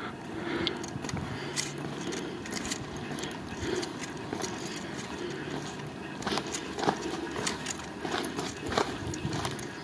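Footsteps on dry, gravelly ground: an irregular run of crunches and clicks.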